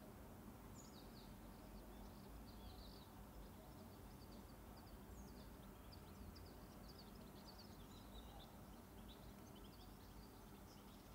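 Near silence: quiet room tone with a low hum and many faint, short, high-pitched chirps scattered throughout.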